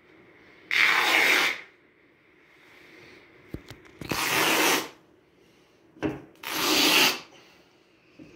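Iwan Simonis pool table cloth being ripped by hand into a 6-inch rail strip. There are three loud tearing rips of under a second each, about one, four and six and a half seconds in, with a brief short rip just before the last.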